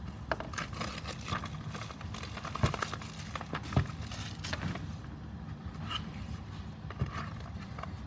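A cardboard box being handled and opened, with scraping and rustling and a few sharp knocks as it is set down and its lid opened.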